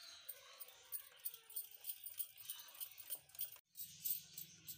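Wire whisk beating batter in a glass bowl: quick, rhythmic clinking of the wires against the glass, about four or five a second, with a brief break about three and a half seconds in.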